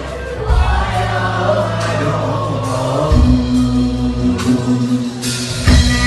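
Live band music with singing, a long note held from about halfway through.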